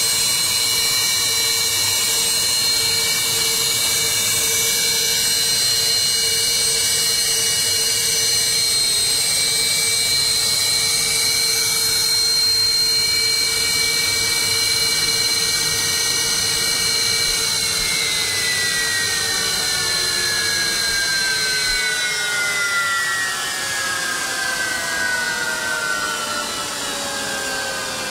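Su-30SM fighter's AL-31FP turbofan engines running with a steady high whine over a hiss. From about two-thirds of the way in, the whine tones slide gradually down in pitch as the engines spool down.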